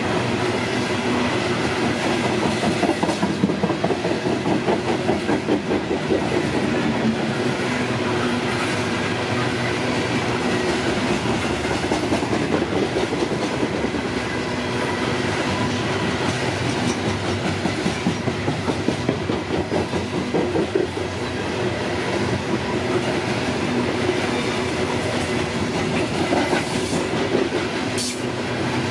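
Loaded Norfolk Southern coal hopper cars rolling past at speed: a steady rumble of steel wheels on the rails, with a rhythmic clickety-clack as the wheels pass over the rail joints.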